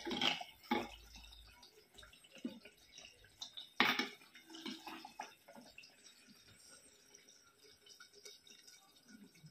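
A metal ladle clinking a few times against a clay cooking pot and a ceramic serving bowl, with soft pouring and dripping of thick curry gravy. The loudest clink comes about four seconds in.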